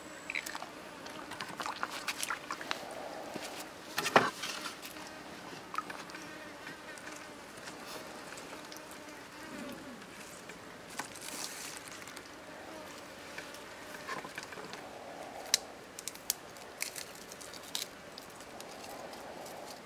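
Small clicks and knocks of hand food preparation: bowls, dried mushrooms and vegetables handled on a wooden table, with one louder knock about four seconds in.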